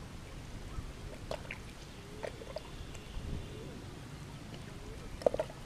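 Hands digging and groping through wet paddy-field mud, with scattered squelches and wet pops, the sharpest one near the end, over a steady low rumble.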